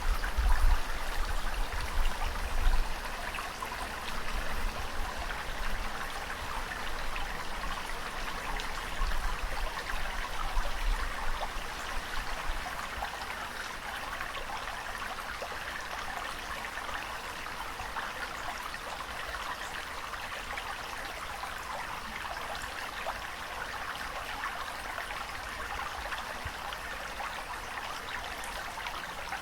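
Steady rushing water with fine trickling and splashing, with low rumbles through the first dozen seconds before it settles into an even wash.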